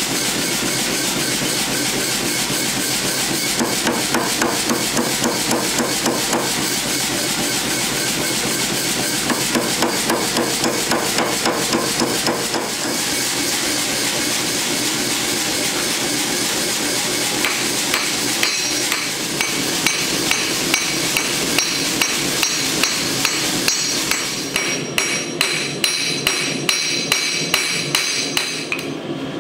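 Hammer blows shaping red-hot steel: a dense run of strikes for most of the time, then separate blows about two a second near the end, with the anvil ringing after each. A steady roar runs underneath.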